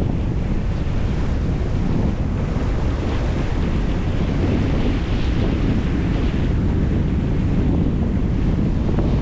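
Wind buffeting the microphone over the steady rush of lake water along the hull of a sailboat moving under sail.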